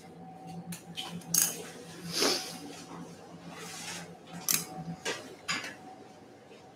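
Steel surgical instruments, a needle holder and thumb forceps, clicking and clinking in scattered sharp taps while skin sutures are placed, over a faint low hum.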